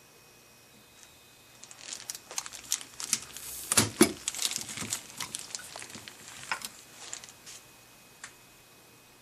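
Crinkly rustling with many sharp clicks and small knocks for about six seconds, loudest near the middle, then one last click.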